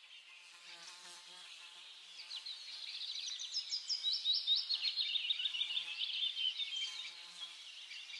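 Small birds twittering: many quick high chirps and short pitch sweeps, faint at first, swelling in the middle, then fading away near the end.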